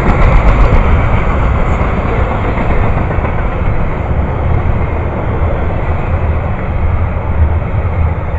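A train rolling past close by: a loud, steady rumble of wheels on rail.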